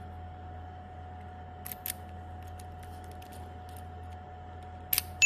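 CNC key cutting machine humming steadily with a thin whine, broken by a few sharp metallic clicks: a pair about two seconds in, fainter ticks after, and a louder double click near the end.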